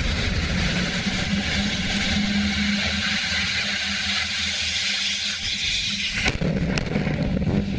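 SpaceX Falcon 9 first-stage rocket engine running during its landing burn onto a drone ship: a loud, steady rushing roar with a low rumble. About six seconds in the sound changes abruptly, with a few sharp cracks, as the booster tips over on a failed landing leg.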